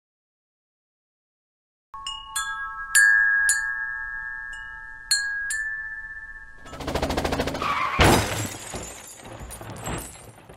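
Silence, then from about two seconds in a run of about six bright chime strikes, each leaving a sustained ringing tone. Later the ringing gives way to a dense rattling buzz, with a sharp hit about eight seconds in.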